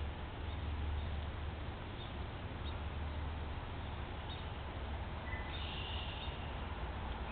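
Steady hiss and low rumble of outdoor ambience on a trail camera's microphone, with a few faint high bird chirps about five to six seconds in.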